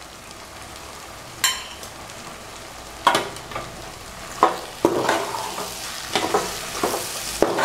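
Steel spoon stirring Indian gooseberries in an aluminium pot, scraping and clinking against the metal, over a steady sizzle of frying oil. There is one scrape about one and a half seconds in, then a run of scrapes and clinks from about three seconds on.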